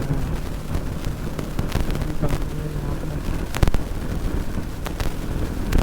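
Bajaj Pulsar NS200's single-cylinder engine running while the bike is ridden, mixed with wind buffeting on the microphone. Sharp cracks cut through, the loudest about three and a half seconds in and another near the end.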